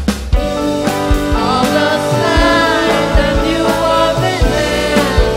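A live rock band playing a song: sung vocals over drums, bass guitar and electric guitars. The singing comes in about a third of a second in, after a drum fill.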